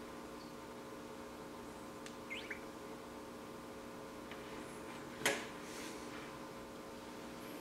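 Faint steady hum with a couple of tiny chirps a little over two seconds in, and a single sharp knock about five seconds in as the small camera is handled and its button pressed.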